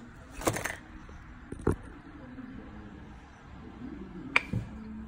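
A few knocks and clicks of a metal piston and its small parts being handled on a workbench: a cluster of knocks about half a second in, another near the middle, and one sharper metallic click with a short ring near the end.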